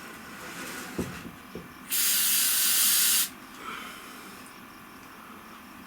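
Aerosol can of sealant spraying in one loud, steady hiss lasting about a second and a half, starting about two seconds in; a light knock comes a second before it.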